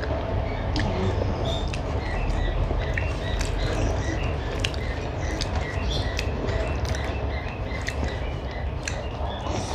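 Fingers mixing rice and chicken curry on a steel plate, giving small scattered clicks, while birds chirp many times in the background over a steady low hum.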